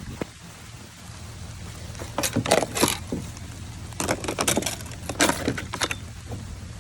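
A steady low rumble, like a car running, with three short bursts of rattling and clattering a little over a second apart.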